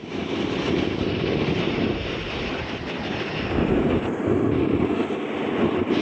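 Snowboard sliding over snow, a steady rushing scrape with wind on the microphone.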